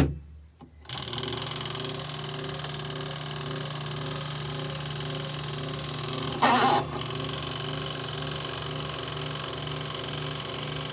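A click, then about a second later the motor of a compact twin-tub washing machine starts up and runs with a steady hum and a faint regular pulse. About six and a half seconds in there is a brief loud rush of noise.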